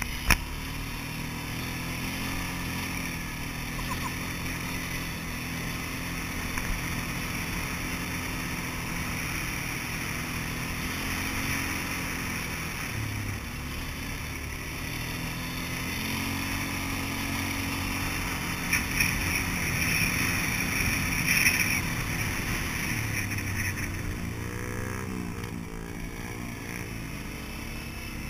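Polaris Sportsman 400 ATV engine running while riding, heard from a mount on the quad itself, its pitch rising and falling with the throttle. A few brief knocks and rattles come about two-thirds of the way through.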